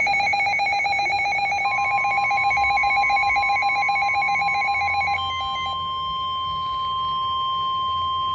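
Emergency alert tones: a buzzing two-tone EAS attention signal sounds and stops about five seconds in. From under two seconds in it is overlapped by a steady single-pitched tone, the NOAA Weather Radio 1050 Hz warning alarm, which keeps sounding.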